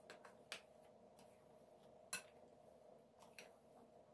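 Near silence with a faint room hum and three faint taps, the plainest about two seconds in, as a plastic dough scraper works sticky dough out of a glass bowl onto a floured mat.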